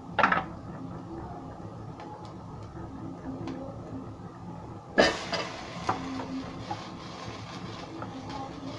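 Steel ladle stirring and scraping coriander seeds, dried red chillies and coconut pieces as they dry-roast in an aluminium pot, with a short knock just after the start and faint clinks. About five seconds in, a handful of shallots is tipped into the pot with a sudden clatter, followed by more rattling and stirring.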